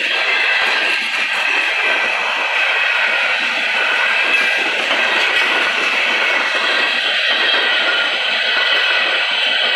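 Arkansas & Missouri Railroad freight train's open-top hopper cars rolling past, their steel wheels making a steady loud rolling rumble and hiss on the rails.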